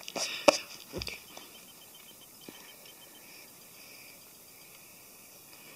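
Rubber eraser rubbed quickly back and forth on paper, with a couple of sharp knocks in the first second. Then the faint scratch of a graphite pencil drawing a line on paper.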